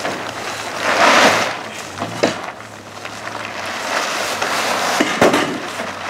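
Plastic tarp crinkling and rustling as it is pulled and tucked over a camper trailer's roof edge, loudest about a second in, with a few sharp knocks or snaps.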